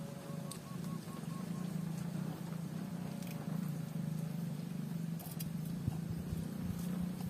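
A steady low motor drone, with a short run of faint, evenly spaced high chirps about half a second in.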